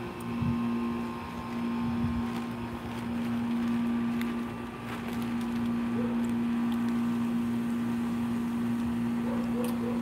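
A steady, low mechanical hum, like a motor running, with a few faint soft knocks and rustles over it.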